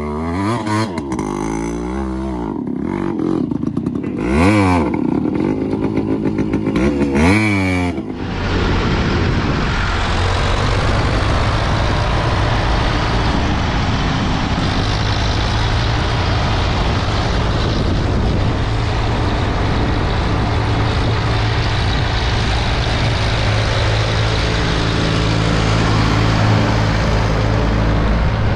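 A motorcycle engine revving up and down hard several times as the bike is spun in loose sand, then, about eight seconds in, a Ford tractor's engine running steadily as it drives along the road.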